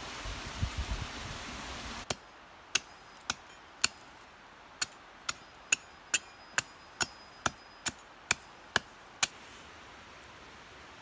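About two seconds of rustling, rumbling noise, then some fifteen sharp hammer strikes, roughly two a second, each with a brief faint ring.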